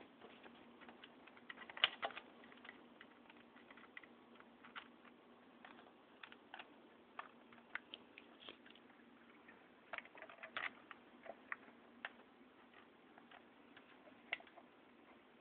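Faint, irregular small clicks and taps over a low hiss, the loudest about two seconds in and again around ten seconds in.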